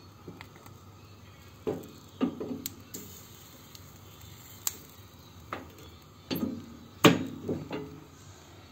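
Irregular knocks and taps, about ten of them, the loudest about seven seconds in: a whole plucked chicken being turned over a gas burner and bumping against the hob's metal pan supports while it is singed.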